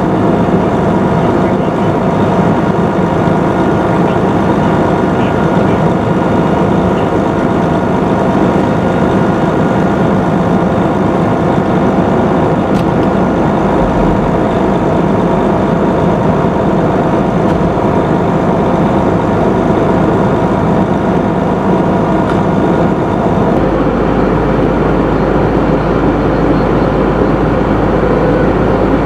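Fire engine's diesel engine running steadily, a constant drone with a low rumble that gets fuller about three-quarters of the way through.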